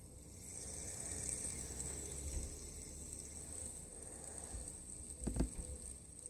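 Fidget spinner turning on its ball bearing, a steady hiss, with a single knock about five seconds in.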